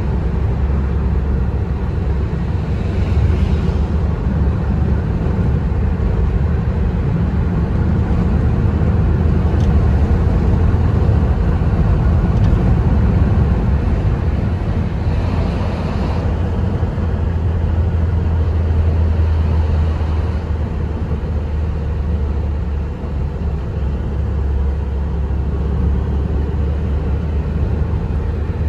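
A car driving, its road and engine noise a steady low rumble.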